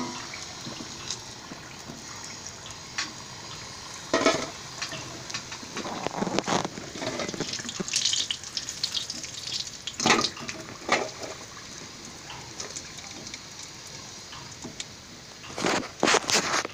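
Samosas deep-frying in hot oil with a steady sizzle, and several sharp clinks of a metal slotted spoon against the pan and a steel bowl as the fried samosas are lifted out, a few coming close together near the end.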